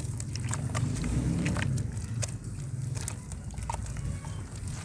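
Dry multani mitti (fuller's earth) in a tub being wetted and worked with water, giving scattered small crackles and clicks over a steady low rumble.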